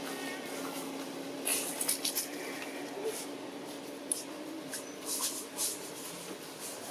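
Dry leaf litter rustling and crunching in short crackly bursts as macaques move over it, several times over a steady low hum.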